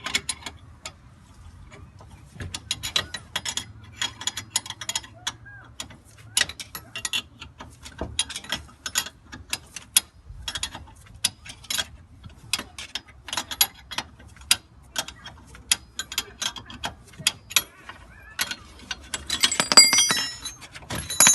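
Ratchet wrench clicking in short runs of strokes while the car's front hub is worked off. Near the end comes a denser burst of metallic clatter and ringing.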